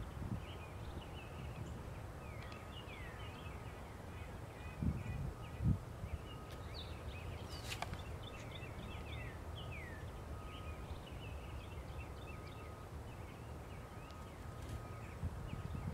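Outdoor ambience of small birds chirping continuously, with many short chirps and quick falling notes, and a couple of low thumps about five seconds in.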